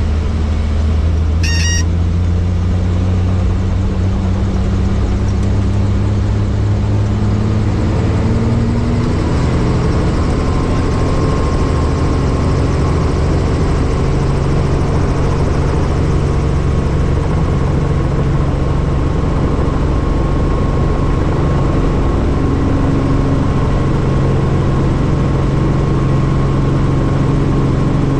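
Helicopter engine and rotor running steadily, a loud low drone whose pitch steps up slightly about nine seconds in. A short electronic beep sounds about a second and a half in.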